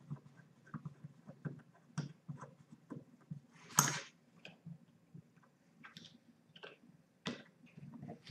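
Light scattered clicks and taps of small steel revolver parts and a screwdriver being handled on a table while the cartridge ejector's axle is fitted and screwed in, with one louder knock about four seconds in.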